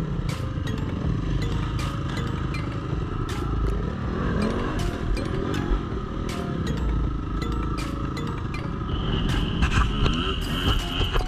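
Dirt bike engines running close by, their pitch rising and falling as the throttle is opened and closed, with short rattling knocks throughout.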